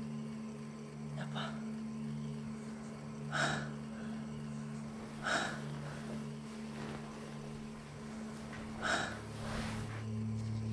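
A man breathing out in short, sharp breaths or sighs, about four times, over a low steady hum.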